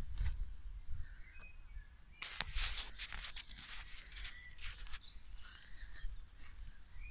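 Footsteps and rustling as someone walks over grass, with a dense patch of rustling about two seconds in, and a bird chirping faintly now and then.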